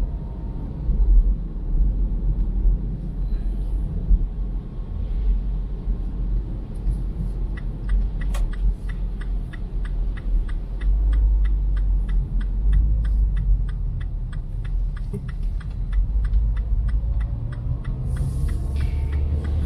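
Car driving along a road: a steady low rumble of road and engine noise, with a run of evenly spaced light ticks, about three a second, through the middle.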